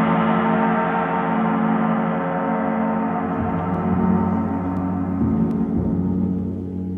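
Gong ringing in a sustained wash of many overtones. Its high shimmer slowly fades while the deep hum holds on.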